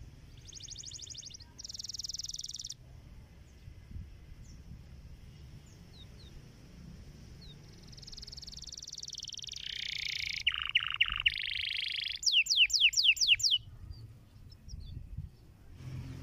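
Domestic canary singing: two short bursts of fast high trills, a pause of several seconds, then a longer, louder phrase of rolling trills that ends in a quick string of about seven sharp downward-sweeping whistles.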